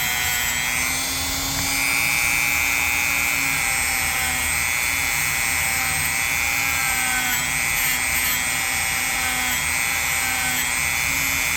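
Dremel rotary tool with a wire brush attachment running steadily at high speed, a high whine with a lower hum beneath it, as the brush cleans grime from the tangs of a pocket knife.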